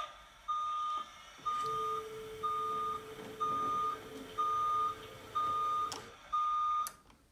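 Container crane warning beeps played by a DCC sound module: one high electronic beep about once a second, each about half a second long, seven times in a row. A steady lower hum runs underneath from about one and a half to six seconds in while the gantry crane moves.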